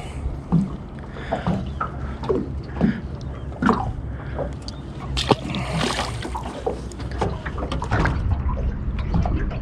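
Water sloshing and splashing against a small boat, with scattered knocks and clicks and a louder splash about five seconds in, over a steady low rumble.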